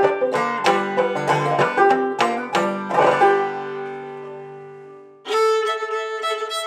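Clawhammer banjo picking quick notes, then a final chord left ringing and fading away. About five seconds in, a fiddle enters with long bowed notes.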